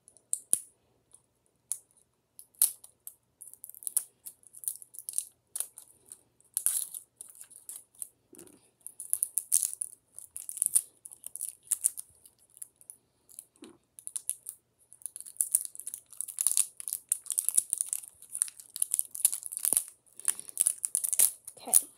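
Plastic wrapper on a kinetic sand container being crinkled, picked at and torn as it is worked off. Scattered crackles at first, turning into dense, near-continuous crinkling in the second half.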